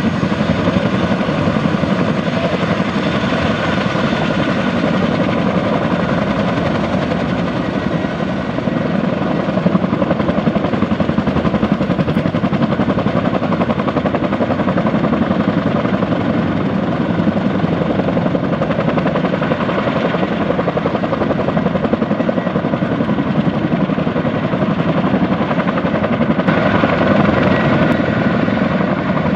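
Boeing CH-47D Chinook tandem-rotor helicopter taxiing: the fast, even chop of its two rotors with the steady whine of its twin Lycoming T55 turboshaft engines, loud throughout and a little louder near the end.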